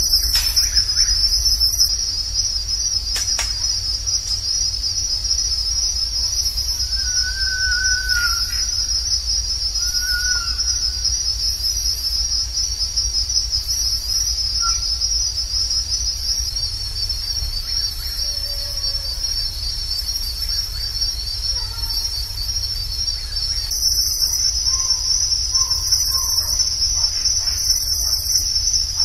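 A steady, high-pitched, pulsing chorus of night insects, with a low rumble underneath. A few faint short calls from some more distant animal come through around the middle.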